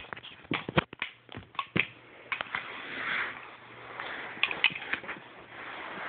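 Irregular clicks, knocks and rustling clatter of a child's tool set being handled and knocked together.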